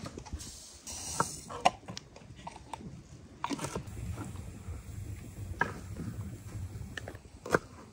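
Scattered light clicks and knocks of kitchen work: a knife cutting quince and glass bottles being handled and filled, with a brief hiss about a second in.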